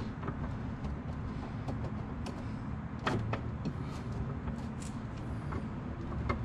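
Light metal clicks and knocks from fasteners being fitted by hand on the rear fender bracket inside the wheel well, scattered, with a small cluster about three seconds in. A steady low hum runs underneath.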